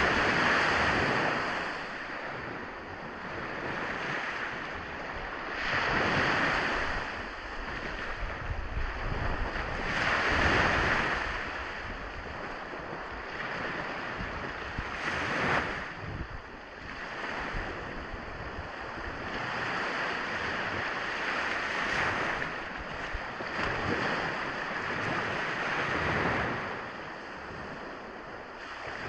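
Ocean waves breaking on a shore, the surf swelling and falling back every four to six seconds, with an unbroken wash of water between the breakers.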